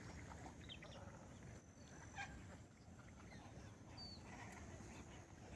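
Near silence with a few faint, short, high bird calls, scattered singly across a few seconds.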